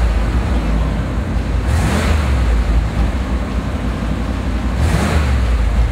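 1978 Chevrolet Corvette's 350 cubic-inch V8 idling steadily through an aftermarket Flowmaster dual exhaust, a deep, even rumble.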